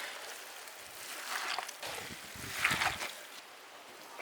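Minced chicken momo filling with lemon juice being mixed, heard as a few uneven bursts of wet mixing noise, the strongest about two and a half seconds in.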